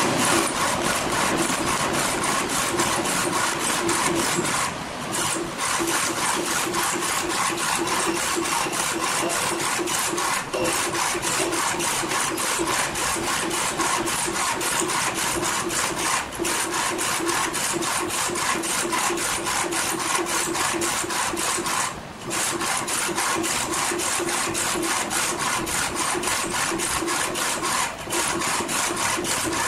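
Desktop A4 UV flatbed printer printing on stainless steel: the print-head carriage with its UV curing lamp runs back and forth, a steady mechanical whir with a fast even chatter. It drops out briefly about every six seconds.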